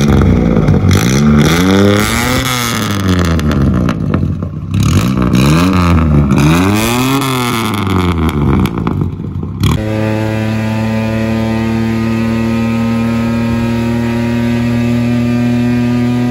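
Suzuki Mehran's three-cylinder engine through a straight-pipe exhaust, revved at a standstill in several rising and falling blips. About ten seconds in it cuts to a steady engine drone at constant speed, heard from inside a small car on the move.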